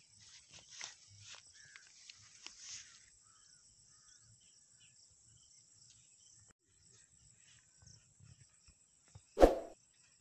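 Footsteps in rubber flip-flops on short grass for the first three seconds, a run of light rustly steps, then near-quiet outdoor background. About a second before the end comes one short, loud burst, much the loudest sound.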